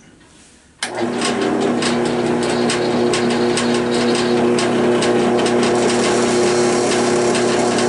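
Central Machinery 10-inch 12-speed belt-driven benchtop drill press switched on about a second in, its motor and belt drive then running steadily at the 300 RPM setting with a layered hum and scattered sharp ticks.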